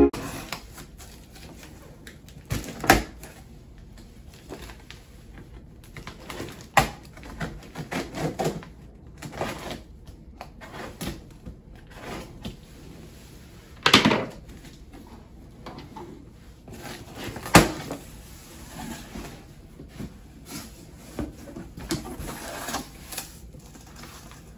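Cardboard shipping box being opened and its contents handled: scattered rustling and rubbing of cardboard and packing, broken by a few sharp knocks and thumps, the loudest about fourteen and seventeen seconds in.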